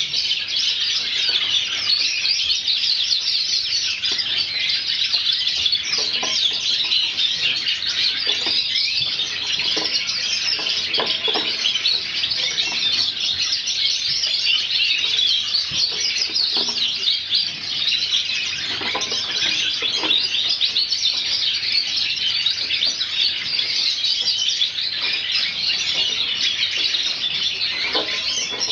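Many small cage birds chirping and twittering over one another in a dense, unbroken chatter of short high chirps.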